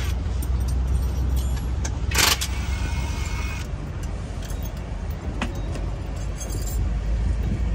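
Metal hand tools clinking now and then over a steady low rumble, with one short, louder noise about two seconds in.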